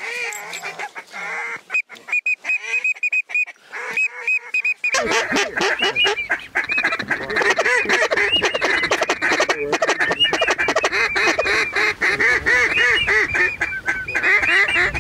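Canada goose honks and clucks: a few single honks at first, then from about five seconds in many overlapping calls in a loud, dense chorus.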